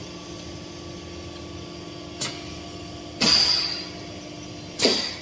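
Static mixing and dosing machine running with a steady hum, a sharp click about two seconds in, then two short hisses, the first lasting about half a second and the second briefer near the end, as the main-product feed from the press starts.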